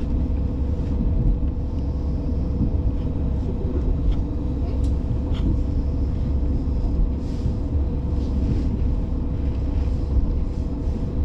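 Diesel railcar running along the line: a steady low rumble with a constant hum over it and a few faint ticks.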